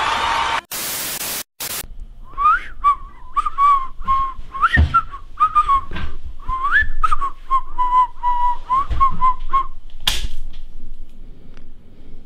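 A person whistling a quick tune of short notes with upward slides. It follows a brief hiss of static about a second in, and a short noisy burst comes near the end.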